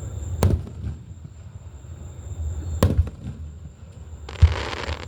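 Aerial fireworks bursting: three sharp bangs, about half a second in, near three seconds and about four and a half seconds in, the last followed by a short hiss.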